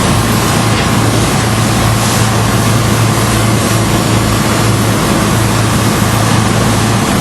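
A steady engine hum under a loud, even rushing noise that does not let up.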